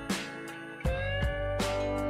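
Instrumental background music with a steady beat; it gets louder a little under a second in.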